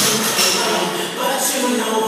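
Background pop music with singing, with a short clatter right at the start.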